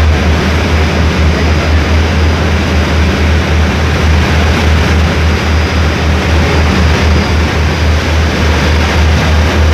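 Passenger ferry's engine running steadily with a deep pulsing drone, over the rush of propeller wash churning behind the stern.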